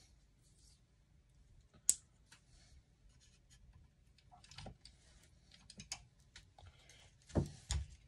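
Light handling noises at a workbench: scattered small clicks and rustles, one sharp click about two seconds in, and two dull thumps near the end.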